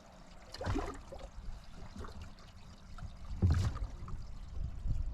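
Water lapping and splashing, with two louder splashes, about a second in and about three and a half seconds in, over a low rumble.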